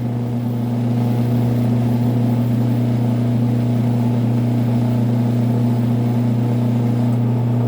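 Small AC electric motor running steadily under relay control, giving an even low mains hum with a second, higher tone above it.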